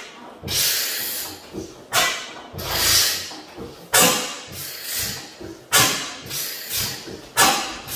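Fairbanks Morse type N single-cylinder stationary engine running slowly on propane. It fires with a sharp exhaust bang about every two seconds, with quieter puffs between and hissing after each.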